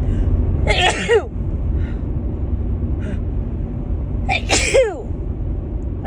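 A woman sneezing twice, about a second in and again at about four and a half seconds, each a sharp burst that ends in a falling vocal cry, sneezing with a cold or allergies. A steady low rumble runs underneath.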